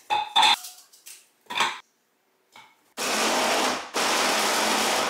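A few sharp knocks, then from about three seconds in an electric stick blender's chopper attachment runs in two pulses with a brief break, chopping peppers and onions.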